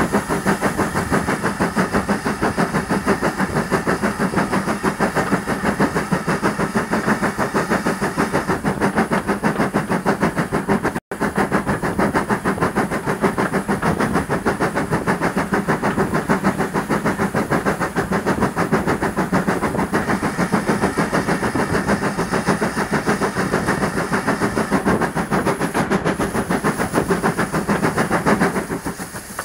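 Steam locomotive running, heard from its footplate: its exhaust beats come in a fast, steady rhythm, with the sound cutting out for a split second about a third of the way in. Near the end the beats stop and the sound drops away.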